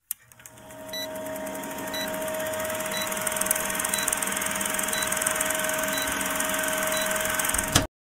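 Old film projector clattering and whirring, as on a countdown film leader, with a short blip once a second. It fades in over the first second and cuts off suddenly near the end after a brief loud burst.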